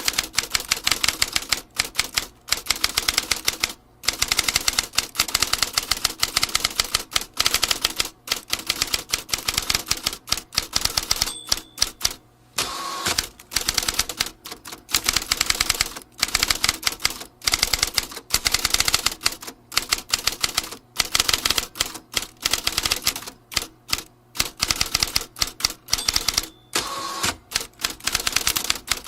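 Vintage typewriter being typed on steadily: rapid key strikes clacking in long runs, broken by short pauses.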